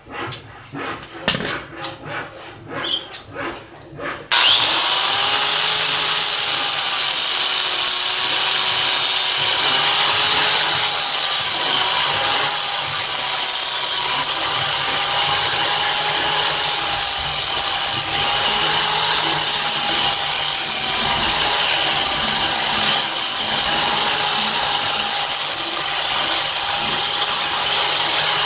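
A few light knocks and clicks of handling, then about four seconds in an electric angle grinder with a sanding disc starts up and runs with a steady high whine, sanding the edge of a small wooden piece. Its pitch dips and wavers slightly as the wood is pressed against the disc.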